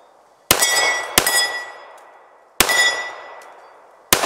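Four shots from a CZ 97 BD .45 pistol, each followed by the ring of a struck steel plate target. The first two come close together, the last two more widely spaced.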